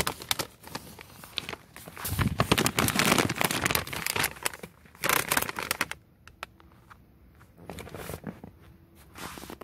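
A bag of Wise lightly salted potato chips crinkling as it is handled, dense and loudest from about two seconds in until just past five seconds, then a few scattered crackles.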